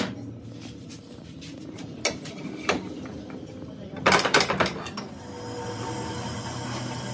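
Metal parts and tools clinking against a steel bench vise as a wheel hub is handled: single clicks about two seconds in and again just after, then a quick cluster of rattling clanks around four seconds in. A steady hum follows near the end.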